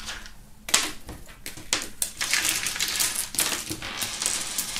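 Backgammon checkers and dice clicking and clacking against each other and the table as they are swept together and stacked by hand, in an irregular run of small clicks with a sharper clack about a second in.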